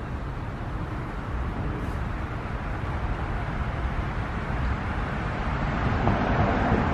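Road traffic on a city street: a steady rumble of passing cars that swells louder over the last couple of seconds.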